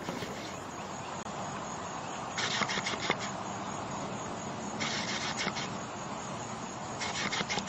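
An animal snoring: three fluttering snores in a slow breathing rhythm, about two and a half seconds apart, over a steady background hiss.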